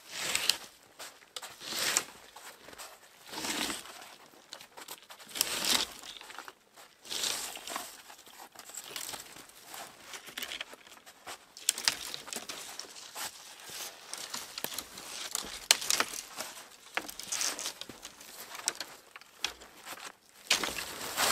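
Crunching and rustling in short bursts, one every second or two.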